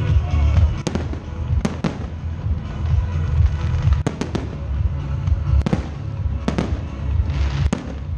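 Firework shells bursting in sharp bangs, some single and some in quick pairs, with a crackling burst near the end, over loud music with a strong bass.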